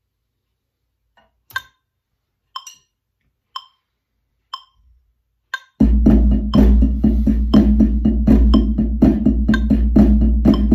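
Wood-block click track at 60 beats a minute, five lone clicks one second apart. About six seconds in, a loud backing track with a steady low bass comes in, together with fast strokes of iron practice sticks on a drum practice pad.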